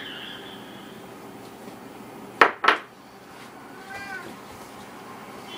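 A domestic cat meows once, a short call that rises and falls, about four seconds in. Shortly before it come two loud knocks in quick succession, the loudest sounds here.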